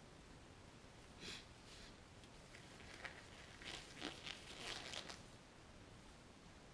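Faint handling noises over quiet room tone: a few short scrapes and rustles of small objects being moved, about a second in and again between three and five seconds in.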